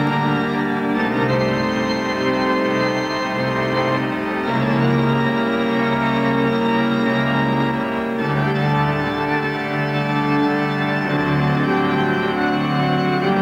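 Organ music score playing slow, sustained chords that change every few seconds.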